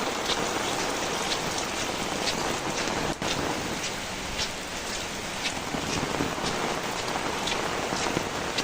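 Steady rain falling, with many individual drops and drips striking close by as short, sharp ticks. The sound drops out for a moment about three seconds in.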